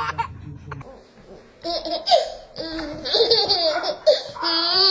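A baby laughing: a short giggle at the start, then, after a brief lull, a run of high, excited laughs and squeals.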